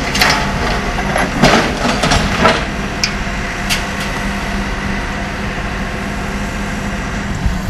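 Heavy diesel engine running steadily, with a few short knocks and clanks in the first few seconds.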